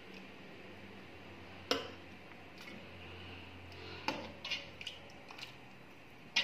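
A few short sharp clinks of a metal spoon against a steel cooking pot: one about a second and a half in, a quick run of them around four to five seconds, and one more near the end, over a faint steady low hum.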